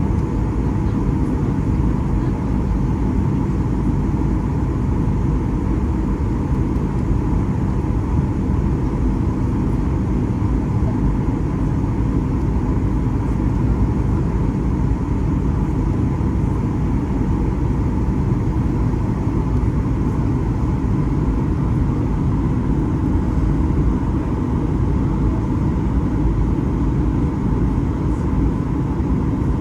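Cabin noise of a Boeing 737-800 with its engines running: a steady low rumble of engine and airflow with a faint steady hum above it.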